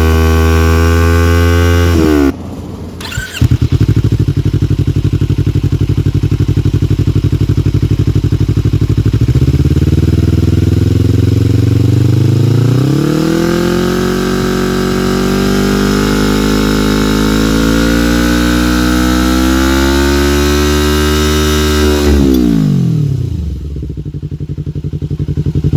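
Yamaha R25/MT-25 250 cc parallel-twin engine breathing through an aftermarket R9 Assen exhaust, idling and being revved. High revs cut off about two seconds in and the engine settles to a pulsing idle. It then climbs slowly to higher revs, holds them for several seconds, and drops back to idle near the end.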